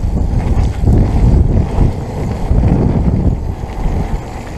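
Mountain bike descending fast on a dirt forest trail: wind buffeting the microphone over a low rumble of tyres and rattling bike, rising and falling in loudness.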